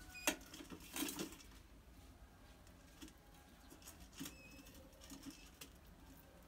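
A rat scrabbling around a stainless steel pot-and-lid trap, making sharp clicks and taps on the metal, loudest and busiest in the first second and a half. A couple of brief high squeaks come near the start and again about four seconds in.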